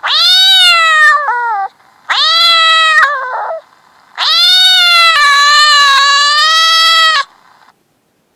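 Cat-meow ringtone: three loud, drawn-out meows, the first two each ending in a short falling tail and the third held for about three seconds.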